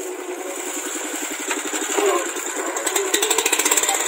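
Mini tractor's small engine running under load while its rotary weeder churns through the soil. A fast, even pulsing grows louder about three seconds in.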